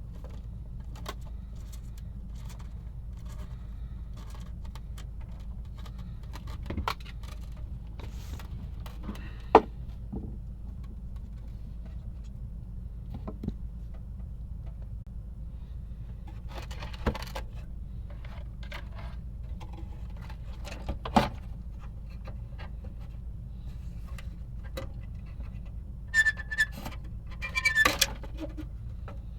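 Scattered clicks, taps and metallic clinks of small hard objects being handled, with a cluster of louder clinks that ring briefly near the end, over a steady low hum.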